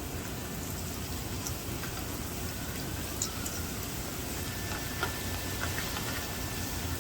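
Hot oil sizzling steadily, with scattered small crackles, as a batch of cut nacho chips deep-fries to puff up.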